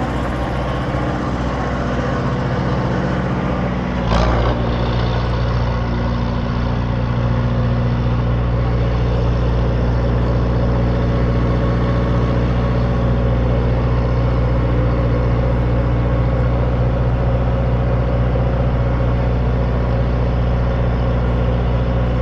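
Soft-serve ice cream truck's motor running with a steady low drone. There is a brief knock about four seconds in, and the drone is louder after it.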